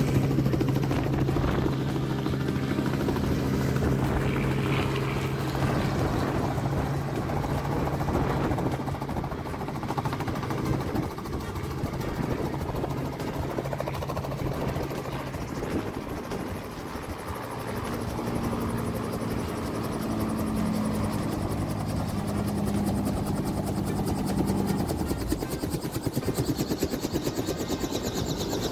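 Helicopter running nearby, its rotor blades chopping in a fast, even rhythm over a steady engine tone. The tone fades about halfway through, and a higher tone comes in later.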